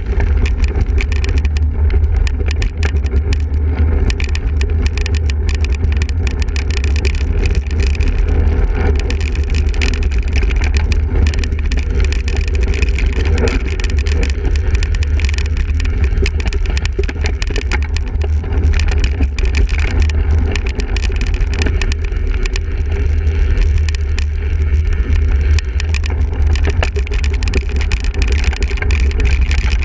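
A single-speed cyclocross bike being ridden hard over rough ground: a steady low rumble from wind and jolting on the microphone, with a constant patter of rattles and clicks from the bike.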